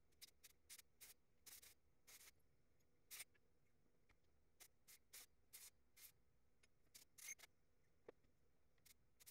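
Faint handling noise: light, irregular clicks and scratchy rustles, about two or three a second, as small hand tools are picked up and moved about.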